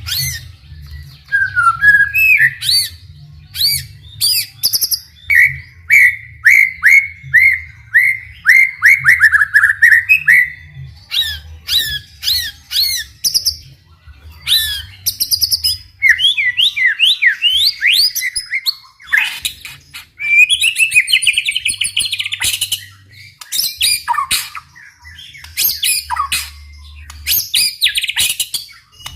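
White-rumped shama singing vigorously: a long, varied run of rapid repeated chirps, trills and sweeping whistled notes in quick succession, broken by short pauses.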